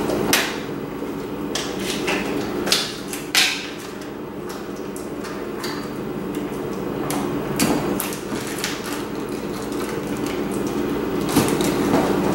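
Kitchen handling noise: dishes and small containers being picked up, opened and set down on the counter and cooktop, giving a string of separate knocks and clicks, the loudest about three seconds in, over a steady low hum.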